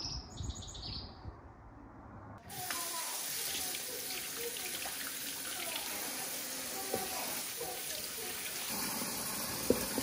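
Water tap running steadily into a sink, starting suddenly a couple of seconds in. A few bird chirps come just before it.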